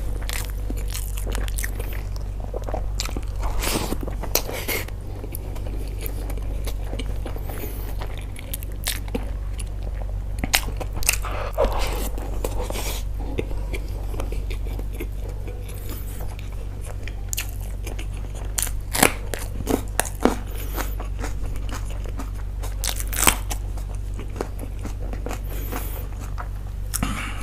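A person eating close to the microphone: chewing and biting with crunches and wet mouth clicks at irregular intervals, over a steady low hum.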